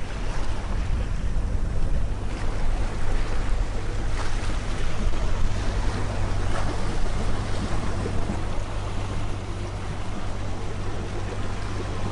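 Sailing yacht motoring through choppy water: water rushing and splashing along the hull and wind on the microphone, over a steady low drone from the boat's inboard engine.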